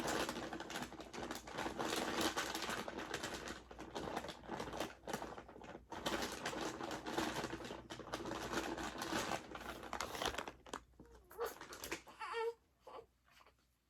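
Saucy black bean instant noodles being stirred and mixed with cheese in a bowl: continuous sticky, wet crackling with the utensil clicking against the bowl. It stops abruptly about twelve seconds in.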